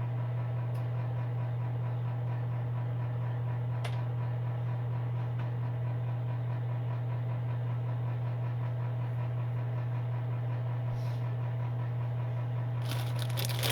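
Electric space heater's fan running with a steady low hum. A burst of crackling comes near the end.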